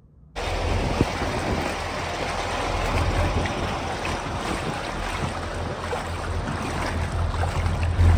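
Wind rumbling on the microphone over rushing floodwater, starting suddenly about half a second in as a steady, loud noise.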